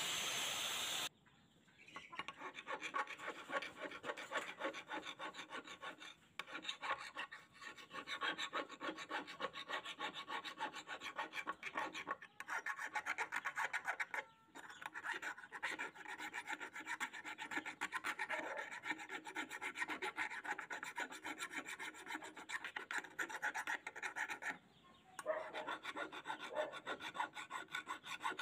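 An angle grinder's disc runs on a steel scissor blade and stops about a second in. Then a hand file is stroked rapidly back and forth along the blade to sharpen its edge: a run of quick rasping strokes with a few short pauses.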